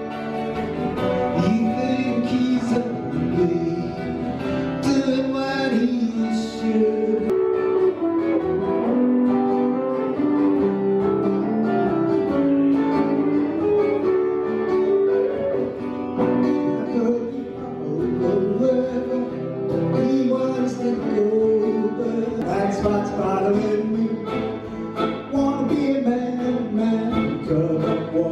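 Live music from an acoustic guitar and an electric guitar playing together, with sliding, bending notes.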